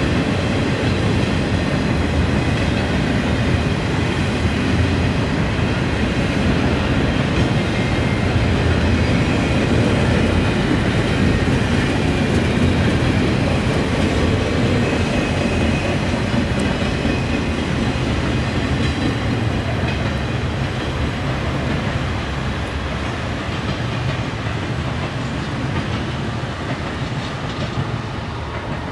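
Norfolk Southern intermodal freight train rolling past, a steady, loud rumble of its wheels on the rails, easing off a little in the last several seconds.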